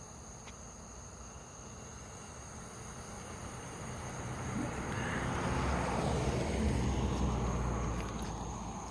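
A motor vehicle passing by: its noise swells over several seconds, is loudest about six to seven seconds in, then fades away.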